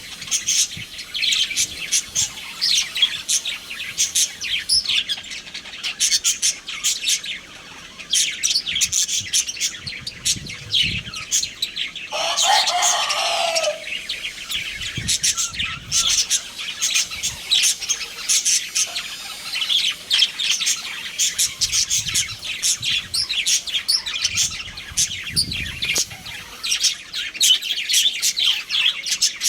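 A flock of budgerigars chattering with a constant stream of short, overlapping chirps and warbles. There is one louder, lower call about twelve seconds in.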